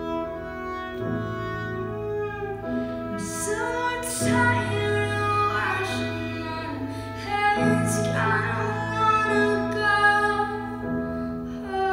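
Live music: a woman singing over sustained keyboard chords with a bowed violin line.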